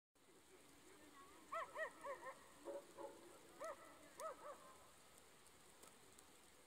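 A dog barking, about ten short barks in quick runs of two or three, starting about a second and a half in and stopping by about four and a half seconds.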